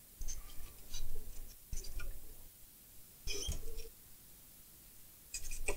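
Light clicks, taps and rattles of hands handling the parts of a disassembled TV, in four short bursts with quiet gaps between.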